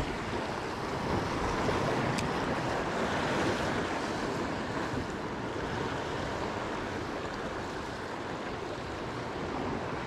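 Ocean surf washing against a rocky shore, with wind buffeting the microphone. A small click about two seconds in.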